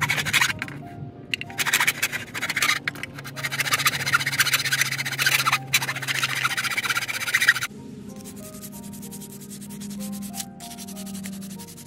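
Hand saw cutting a wooden board in a plastic miter box, with rapid back-and-forth rasping strokes that stop suddenly about two-thirds of the way through. Background music plays under it.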